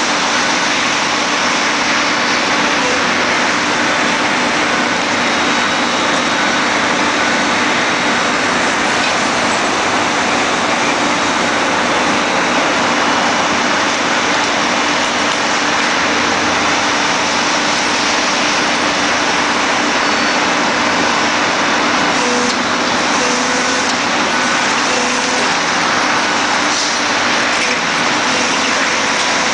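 Vibratory pile hammer rig running steadily while driving a steel H-pile: a loud, unbroken mechanical drone with no let-up.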